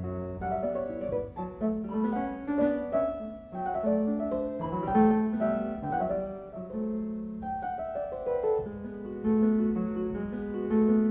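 Piano playing a classical sonatina: a stream of short notes over held low notes.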